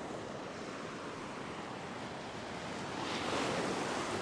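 Ocean surf washing over the sandy shallows, with a wave rushing in louder about three seconds in.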